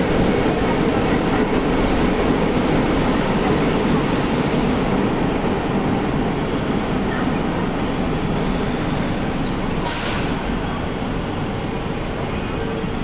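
Electric multiple-unit suburban train heard from on board: a steady rumble of wheels and running gear that slowly grows quieter as the train slows for the next station. A brief sharp noise comes about ten seconds in.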